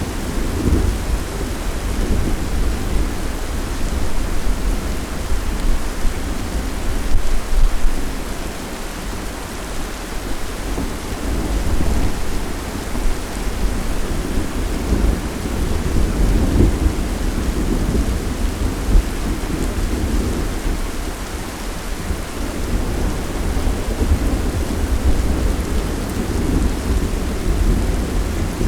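Thunderstorm: steady rain with low rolling thunder that swells and fades several times.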